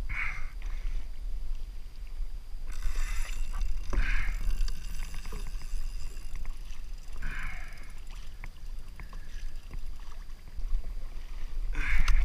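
Water slapping and lapping against a plastic kayak hull in swells every few seconds, over a steady low rumble of wind on the microphone.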